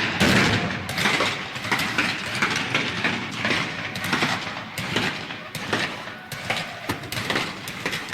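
Staged 19th-century battle ambience: frequent, irregular musket and rifle shots, some overlapping, over a dense background of voices.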